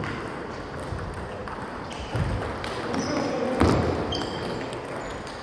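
Table tennis balls knocking against bats and tables in a sports hall, a few scattered sharp clicks with the loudest a little over halfway through.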